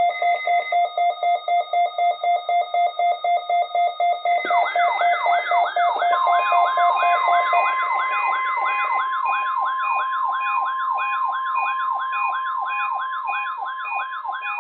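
Weather-radio emergency alert signal: a pulsing electronic beep tone for about four seconds, then a fast warbling siren-like alarm, about three sweeps a second. From about six seconds in, a steady high warning-alarm tone sounds under it.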